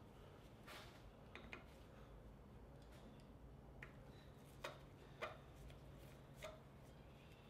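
Near silence with several faint, scattered clicks from a screwdriver working the drain screw on an outboard motor's lower unit, as it is loosened to drain the gear oil.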